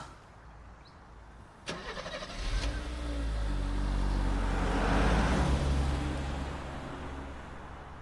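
A car driving past: its engine hum and tyre noise build up to a peak about five seconds in, then fade as it moves away. A single sharp click comes just before the engine sound starts.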